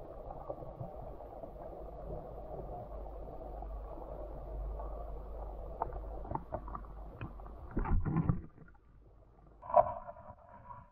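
Muffled underwater stream sound through a submerged camera's housing: a steady rushing hiss, with scattered clicks and knocks from about six seconds in and a louder clatter around eight seconds. Near the end the rush drops away and a couple of short hums are heard.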